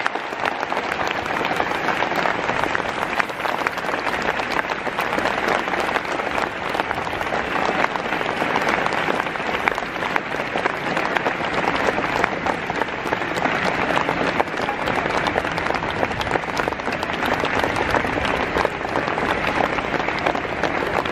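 Large crowd applauding steadily, many hands clapping without a break.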